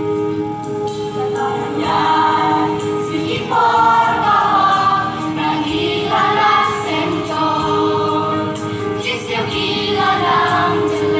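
A large church choir singing a Khasi gospel hymn, amplified over loudspeakers in the open air, with a steady held note running under the voices.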